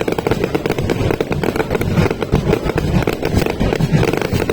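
Fireworks display climax: many aerial shells bursting in quick, continuous succession, a steady barrage of bangs and crackle with no pause.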